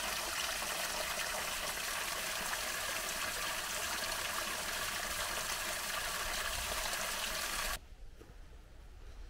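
Steady rush of running water from a small stream. It cuts off abruptly near the end.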